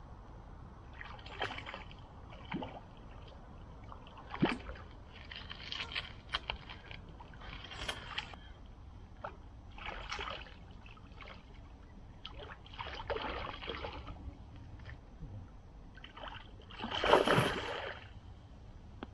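Water sloshing and splashing in short irregular swishes, about a dozen, the loudest near the end.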